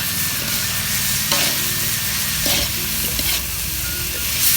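Stir-fry sizzling in a pan as fried salted fish and tempeh are tossed into the sautéed spices and stirred, with a spatula scraping the pan a few times.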